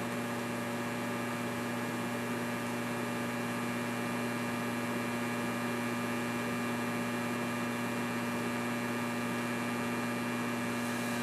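Steady mains-frequency hum with a light hiss from an Alpha 9500 HF linear amplifier transmitting at about 1,500 watts output, its power supply under full load.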